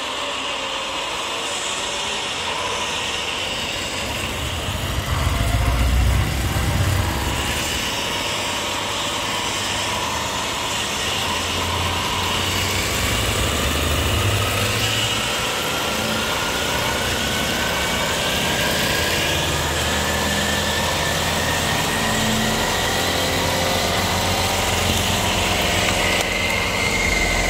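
Truck engine running steadily, with a whine that slowly rises in pitch over several seconds and a louder low rumble about six seconds in.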